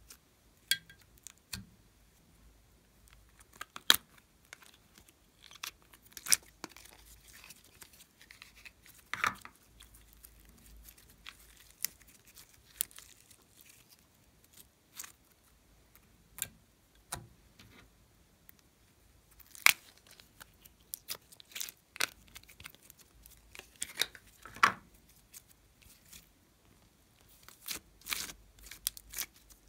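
Hands squeezing, stretching and pulling apart slime and soft clay: irregular sticky clicks and pops, with a few louder snaps.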